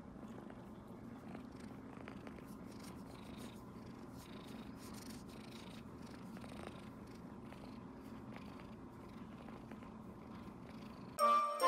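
White mixed-breed kitten purring steadily while its chin and cheeks are stroked. Music starts suddenly and loudly near the end.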